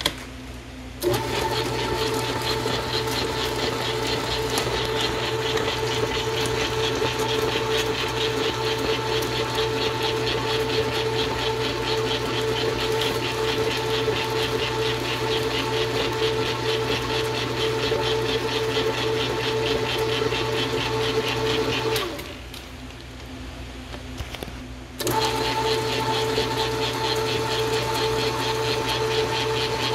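Hobart N50 stand mixer running, its gear-driven motor giving a steady whine with a fast, even rattle above it as the flat beater works stiff cookie dough. It comes up about a second in, drops away for about three seconds a little past twenty seconds in, then runs again.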